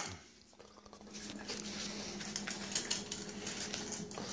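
Cats chewing food from bowls on a tiled floor: a stream of small irregular clicks, with a low steady hum from about a second in.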